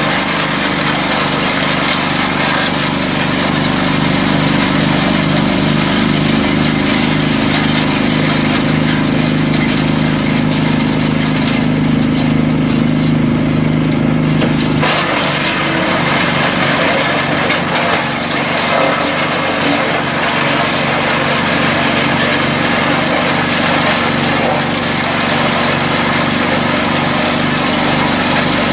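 ELIET garden shredder running continuously, its small engine droning steadily under the crackling noise of leafy branches being fed in and chopped. About halfway through, the engine note changes abruptly.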